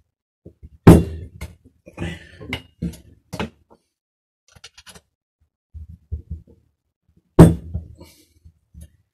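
Metal hand tool knocking and clicking against a BMX bike's seat clamp and seat post as it is worked loose, with two sharp loud knocks, one about a second in and one about seven seconds in, and smaller clicks and taps between.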